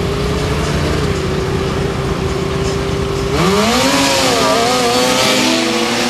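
Snowmobile engine holding a steady note, then about three and a half seconds in a snowmobile launches hard from the start line. Its engine revs up loud, the pitch climbing and then dropping as it passes close by.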